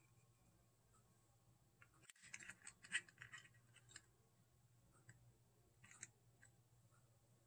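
Faint small clicks and scrapes of hands handling loose wires and plastic model parts, mostly in a cluster between about two and four seconds in and again briefly about six seconds in, over near silence.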